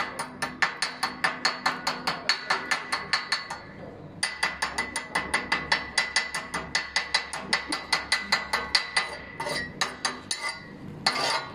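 Chipping hammer rapidly striking a freshly welded steel box-section tank support bracket, about five ringing metal taps a second, knocking slag off the stick-weld beads. The tapping pauses briefly about four seconds in and grows sparser near the end.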